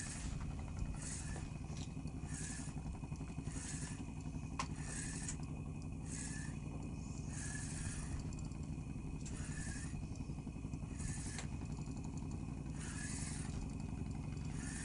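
Fishing boat's engine running steadily with a low drone. A hiss comes and goes about once a second over it, and there is a single sharp click about four and a half seconds in.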